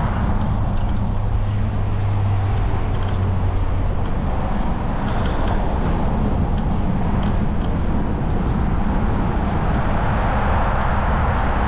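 Steady wind and road noise from riding, rumbling on a GoPro's microphone, with a low steady hum and a few faint ticks.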